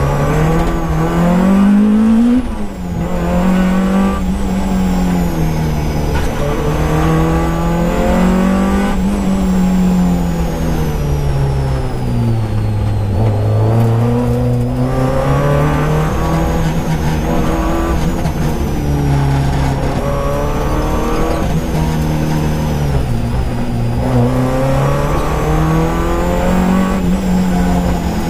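Peugeot 205 rally car's four-cylinder engine heard from inside the cabin, driven hard on a special stage. The revs climb and drop again and again as the driver changes gear and brakes for corners: a quick climb and sharp drop about two seconds in, and the revs sink lowest around the middle before pulling up again.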